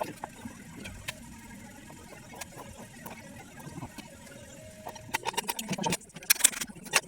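Light clicks and knocks, sparse at first and coming thick and fast in the last two seconds.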